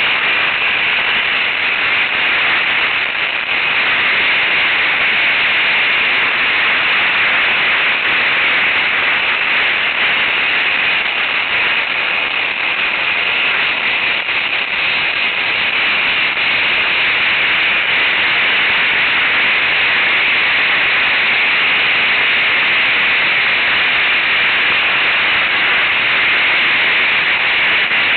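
Steady, loud hiss of wind and riding noise on the camera microphone of a moving ATV, with no distinct engine note.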